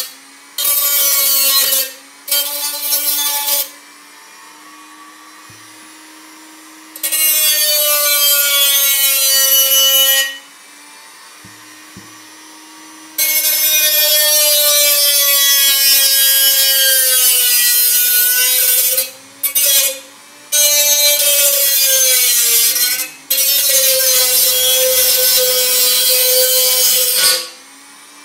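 Black & Decker RT18KA rotary tool with a cut-off wheel cutting into a tin can: a loud grinding screech in repeated stretches of a few seconds each, as the wheel is pressed to the metal. Between cuts the motor's steady whine carries on, quieter, with the wheel off the metal.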